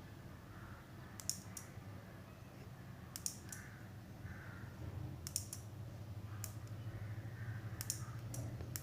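Small relay switching with sharp clicks, about six in all, one every second or two, over a low steady hum: the relay on the RF receiver board pulling in and dropping out as the remote is tested.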